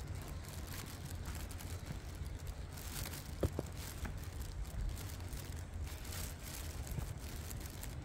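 Footsteps crunching through dry leaves, twigs and bracken litter on a forest floor, with a low steady rumble on the microphone. A short sharp click stands out a little after three seconds in.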